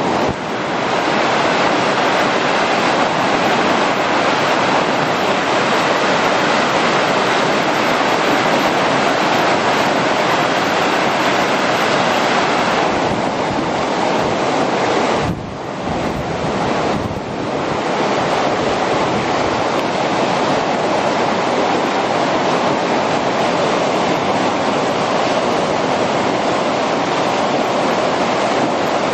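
Whitewater rapids rushing steadily, with two brief dips in level about halfway through.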